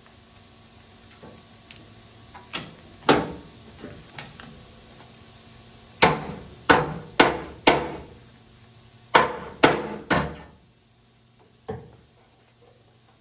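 A string of sharp knocks, each with a brief ring: two single knocks, then a run of four about half a second apart, a run of three, and one more near the end. A faint steady hum lies under them.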